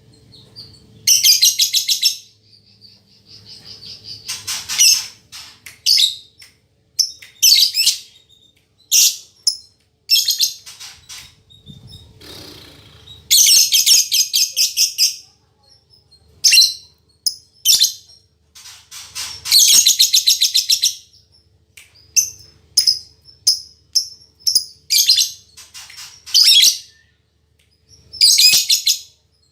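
Female lovebird chattering: bursts of rapid, shrill chirping a second or two long, with short single chirps and brief pauses between them.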